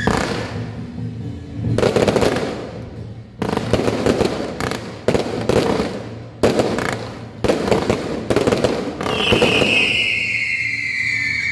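Ground fireworks firing in rapid crackling barrages, several bursts each starting abruptly and sending up coloured smoke. About nine seconds in, a high, slowly falling whistle-like tone sounds over the crackle.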